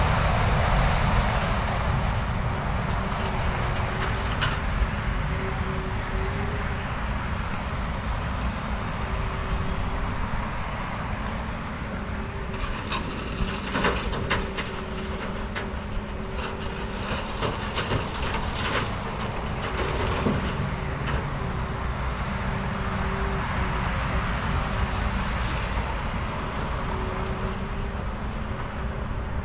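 Heavy earthmoving machinery running steadily with a low rumble and a faint wavering hum, with a cluster of sharp metallic clanks and knocks midway through.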